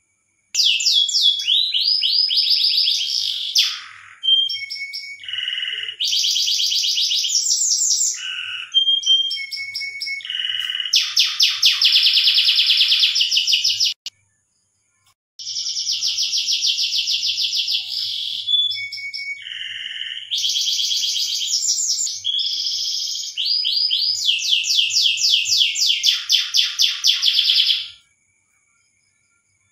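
Domestic canary singing its breeding-season song: long runs of rapid trills and rolls, in two phrases of about thirteen seconds each with a brief pause between.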